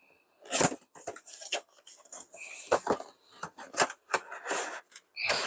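Cardboard headphone box being opened and handled: a string of short taps and scrapes as the flap and inner card are moved, with a longer rustling scrape near the end.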